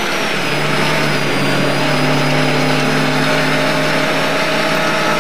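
Lada 1200 rally car's engine pulling at steady revs, heard from inside the cabin at speed, with road noise mixed in.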